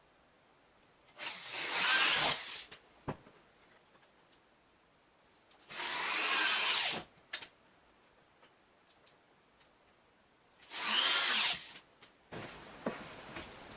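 Electric drill run in three short bursts of about a second and a half each, a few seconds apart, with small clicks and knocks in between.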